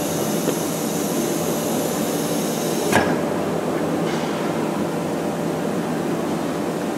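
ATC CNC wood router running with a steady machine hum. About three seconds in there is one sharp clack, and a high hiss cuts off at the same moment.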